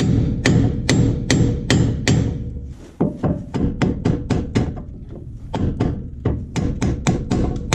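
Heavy hammer, about 3.5 pounds, striking the steel steering knuckle of a Ford F350 Super Duty front axle in a steady run of blows, about three a second, each with a short metallic ring. The blows are being used to shock the lower ball joint free of the axle housing.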